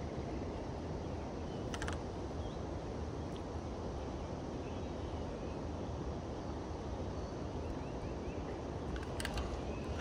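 River rapids rushing steadily, with a couple of brief clicks, one about two seconds in and one near the end.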